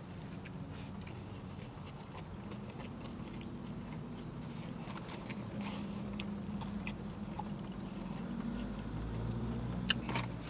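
A person chewing a mouthful of burger, with small wet mouth clicks scattered throughout.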